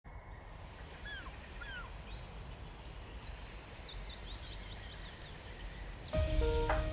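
Birds calling over a low, steady outdoor rumble: two falling calls about a second in, then a run of quick high chirps. Music with steady notes begins near the end.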